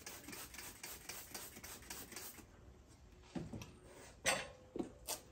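Trigger spray bottle squeezed over and over, a quick run of short squirting hisses wetting the tire bead before mounting; it stops after about two and a half seconds. A few scattered knocks and rubs follow near the end.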